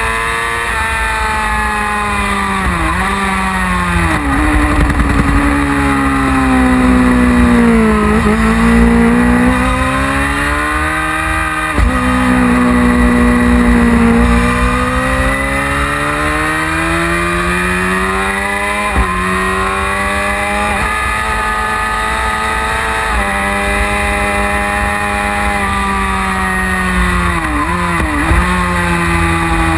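1999 Yamaha R6's inline-four engine revving hard on track, its note rising and falling in long sweeps through the corners and straights, with several sharp breaks in pitch at gear changes.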